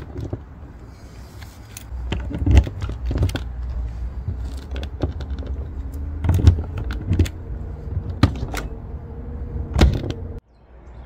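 Keys jangling and a series of sharp clicks and knocks from a caravan's Thetford outside locker door as a key is worked in its lock and the door is pressed shut on its latch.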